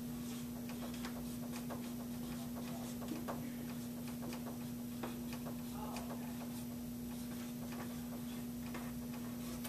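Dry-erase marker writing on a whiteboard: faint, irregular taps and scratches of the pen strokes, over a steady hum.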